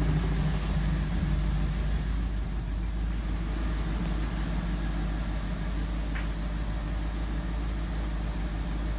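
1969 Mercury Cougar's V8 idling smoothly and steadily on its first run after sitting.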